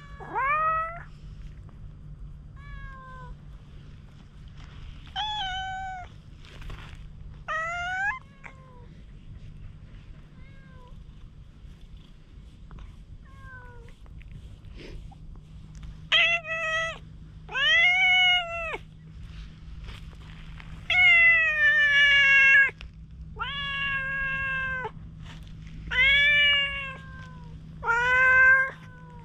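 Cat meowing again and again, a dozen or so calls of under a second to a second and a half each. The calls are faint in the first half and louder and closer together in the second half, with one longer, drawn-out meow about three-quarters of the way through.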